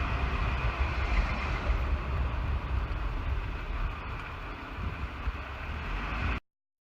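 Steady road and engine noise inside a Jeep Wrangler's cabin while driving, a low rumble with tyre hiss. It cuts off suddenly near the end.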